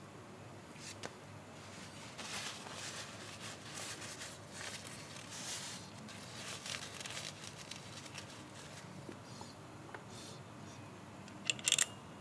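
Faint scraping and rustling handling noise, uneven and without rhythm, followed near the end by a quick cluster of sharp clicks.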